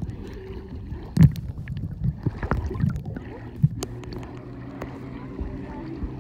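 Muffled water sloshing around a phone sealed in a plastic pouch held at and below the surface, with sharp knocks of the pouch being handled, the loudest about a second in. A steady low hum comes in around the middle.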